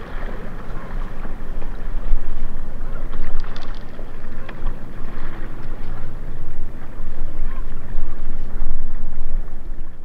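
River water lapping against shoreline rocks, with wind buffeting the microphone in uneven gusts.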